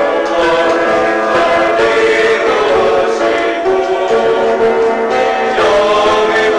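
A youth choir of teenage voices singing a Christian praise song together, moving through long held notes without a break.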